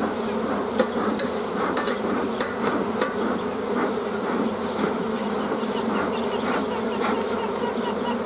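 Honeybees buzzing steadily around an opened hive, with a few light clicks and knocks from the wooden hive parts being handled in the first few seconds.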